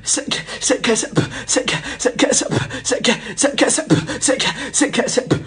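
Fast, dense rhythmic percussion: many sharp, quick hits with low drum strokes that drop in pitch, in a steady driving pattern.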